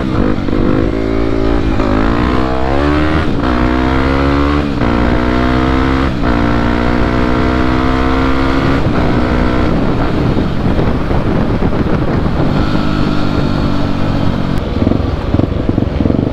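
Yamaha WR250 supermoto's single-cylinder four-stroke engine accelerating hard through the gears. Its pitch climbs and drops back at each of about four quick upshifts in the first six seconds, then it settles into a steadier cruise after easing off.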